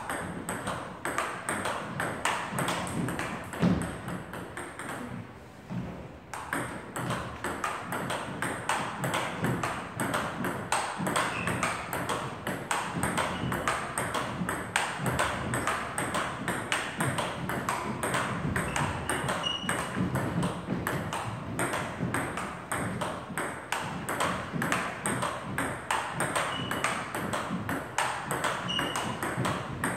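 Table tennis balls hit in quick succession: rapid sharp clicks of bat on ball and ball bouncing on the table, several a second, as two players alternate strokes in a doubles footwork drill.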